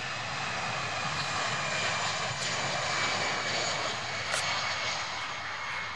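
Airbus A319 twin-jet's engines at takeoff power during the takeoff roll: a steady jet roar with a high fan whine, beginning to fade near the end as the aircraft rolls away.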